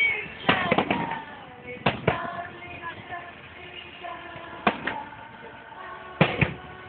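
Fireworks going off: seven sharp bangs, several of them in close pairs.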